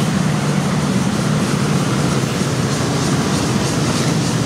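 Many motor scooters running together in dense street traffic: a loud, steady mass of small-engine noise.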